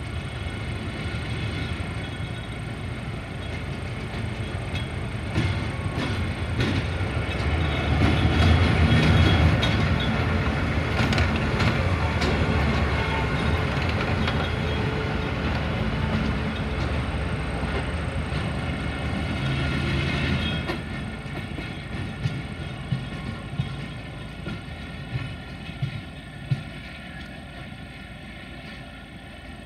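Diesel locomotive passing close at low speed, its engine running loudly and its wheels clicking over rail joints. The engine fades after about twenty seconds, leaving a few sharp clacks.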